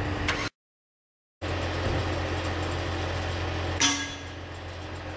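Heavy equipment engines running with a steady low drone. The sound cuts out completely for about a second shortly after the start, and a sharp knock comes near the four-second mark, after which the drone is quieter.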